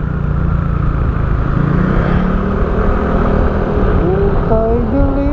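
Motorcycle running steadily at a low cruise, with a constant low rumble of engine and road noise. About four seconds in, a singing voice comes in over it.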